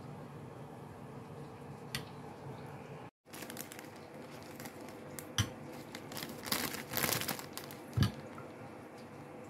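Quiet room tone, then a sound gap about three seconds in. After it comes crinkling from a thin clear plastic freezer bag as hands pull it open and handle it, densest in the second half, with two sharper clicks, the louder one near the end.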